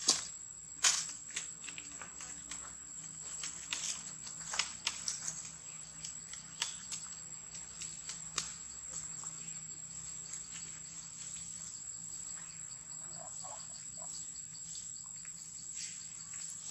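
Steady high-pitched drone of insects, with scattered soft clicks and rustles of dry leaves on the ground.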